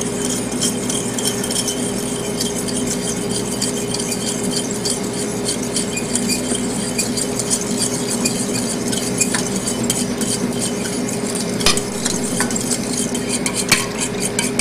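A fork beating a vinaigrette in a stainless steel bowl: a rapid, steady run of metal-on-metal scraping and clinking as oil is whisked into the truffle juice and Dijon mustard to emulsify it, with a couple of sharper clinks near the end. A steady low hum runs underneath.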